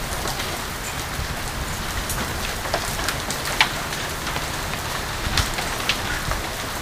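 Hailstorm with heavy rain pelting down: a steady hiss of falling hail and rain, with scattered sharp cracks of single hailstones striking hard surfaces and splashing into pool water.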